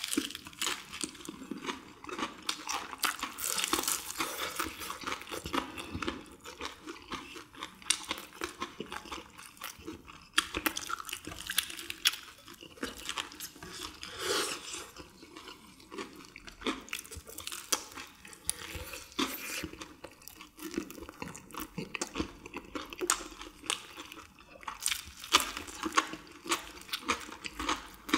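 People biting into and chewing crispy deep-fried chicken coated in a perilla-leaf batter: a steady run of irregular crisp crunches mixed with wet chewing and smacking.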